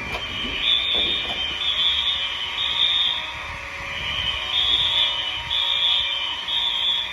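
Building fire alarm horns sounding on continuous, a loud steady high tone that swells and fades about once a second. They are set to a continuous tone rather than a coded pattern, which the uploader doubts is up to code.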